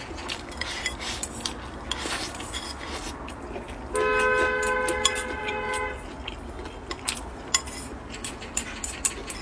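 Chopsticks and utensils clinking lightly on bowls and dishes while eating. About four seconds in comes a steady two-tone vehicle horn blast, lasting about two seconds, which is the loudest sound here.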